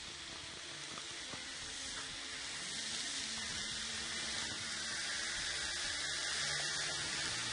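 Thin chicken breast fillets sizzling on a hot electric grill plate: a steady hiss that grows slowly louder.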